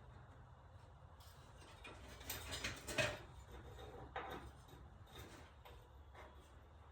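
Hand tools scraping and clinking against metal while working at a stuck spark plug. There is a cluster of scrapes about two to three seconds in with one sharp knock, then a few lighter clicks.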